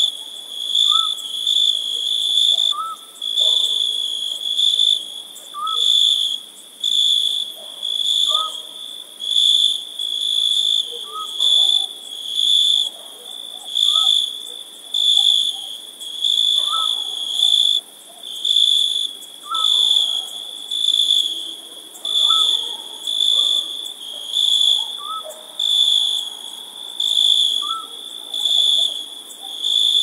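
Crickets chirping in a high, steady chorus that swells and fades about once a second, with a faint short rising call from another animal every few seconds beneath it.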